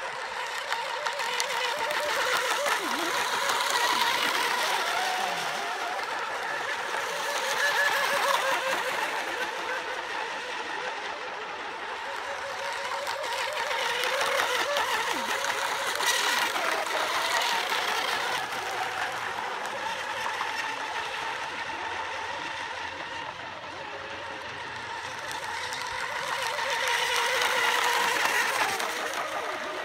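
Several battery-electric radio-controlled racing hydroplanes running flat out, a high whine of their motors and propellers with the hiss of spray, rising and falling in pitch and swelling and fading as the boats pass close and draw away.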